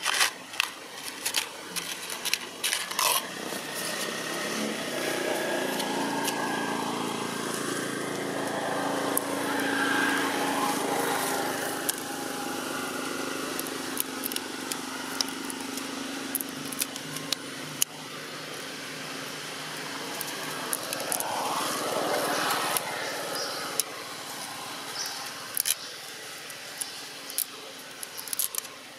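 A motor vehicle engine drones, growing louder and then fading as it passes, with a second swell later. Scattered sharp clicks come in the first few seconds and again near the end.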